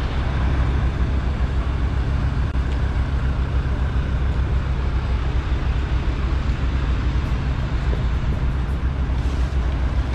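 Truck engine running with a steady low drone that holds evenly throughout, no revving.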